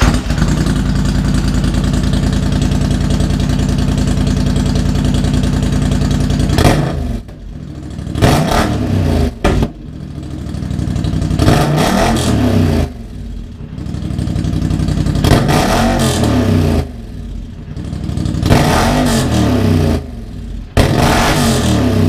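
Polaris Sportsman High Lifter ATV engine running loud and steady for about seven seconds, then revved repeatedly with throttle blips, each rising and falling back to idle.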